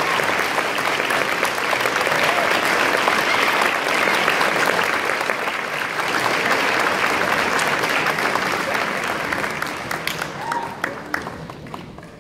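Audience applauding, with a few shouts and cheers; the clapping thins to scattered claps and dies away near the end.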